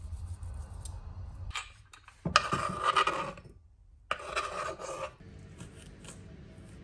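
A small kitchen knife scraping across a bamboo chopping board, twice, each pass lasting about a second, while minced aromatics are pushed off the board into a bowl.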